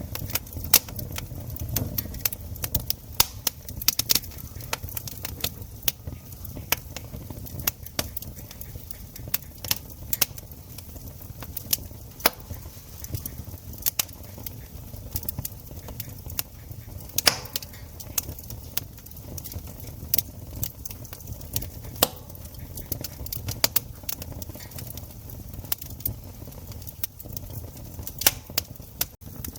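Wood campfire crackling: irregular sharp pops and snaps of burning wood, several a second, over a low steady rumble.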